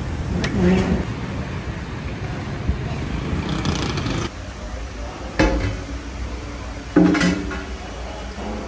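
Aluminium lid of a large cooking pot clanking against the pot rim twice, about a second and a half apart, each with a short metallic ring as it is lifted off and set aside. A low street rumble runs under the first half and fades out about four seconds in.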